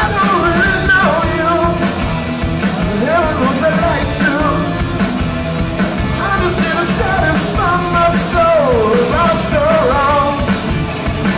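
Live rock band playing loud on stage: electric guitars over a full band, with a lead melody line that bends up and down in pitch.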